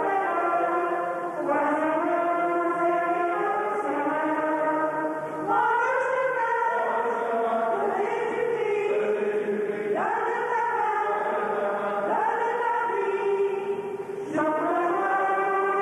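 Church choir singing from song sheets, sustained notes moving step by step in phrases of a few seconds each, with short breath breaks between them.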